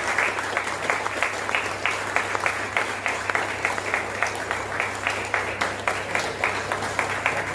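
A small group of people clapping their hands in applause, many quick claps overlapping without letting up.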